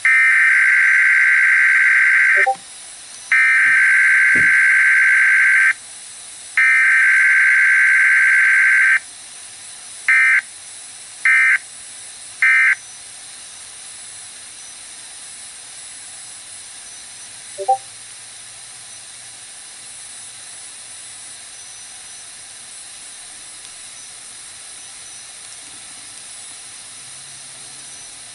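Emergency Alert System required weekly test heard over a radio. Three long bursts of screeching two-tone SAME data header play first, then three short end-of-message bursts, with no attention tone in between. A steady hiss of receiver static runs under them and continues after.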